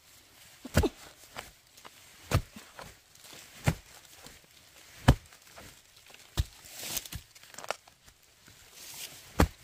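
Repeated heavy strikes, about seven, evenly spaced roughly every second and a half, with brief rustling between some of them.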